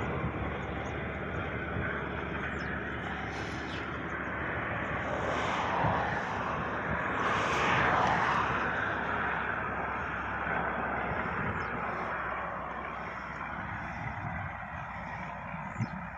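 Caterpillar 313D2 GC excavator's diesel engine running steadily, swelling louder around the middle, with a brief sharp click near the end.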